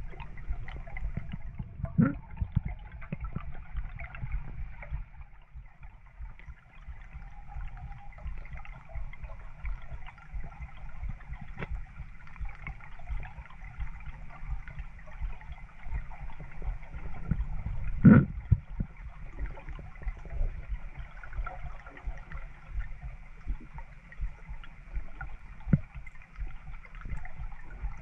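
Underwater ambience in a river: a steady low rumble of water with scattered clicks and knocks, the loudest a sharp knock about 18 seconds in and another about 2 seconds in.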